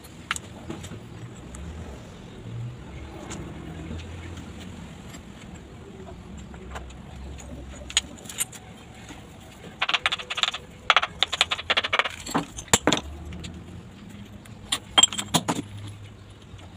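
Broken ceramic tile pieces clinking and tapping against one another as they are picked up and set into fresh mortar, scattered single clicks, then a quick run of clinks past the middle and another short run near the end. A steady low rumble sits underneath.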